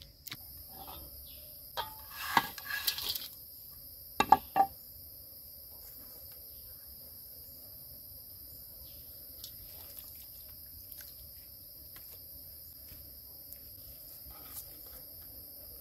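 Steady high-pitched chirring of insects throughout, with a cluster of clattering knocks about two seconds in and a couple of sharp knocks about four seconds in.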